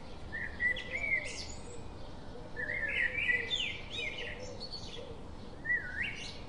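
Birds chirping and calling in short runs of quick rising and falling chirps, about a second in, again three to four seconds in, and near the end, over a faint steady hiss.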